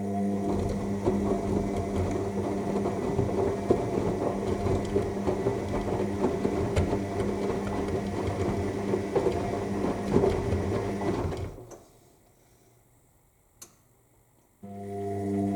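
AEG 7000 Series washing machine tumbling its drum in the final rinse: the drum motor hums steadily under the tumbling of wet laundry and water. About eleven seconds in, the drum stops for about three seconds, with a single click in the pause, then starts turning again.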